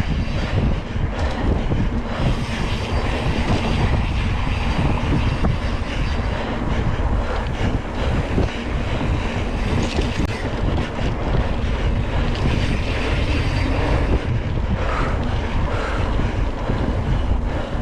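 Wind buffeting the microphone over the rumble and rattle of a single-speed Surly Krampus mountain bike being ridden fast over a dirt trail, with a few sharp knocks from the bike jolting over bumps.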